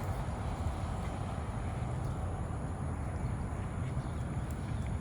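Steady low outdoor rumble with a faint hiss over it, with no clear separate events.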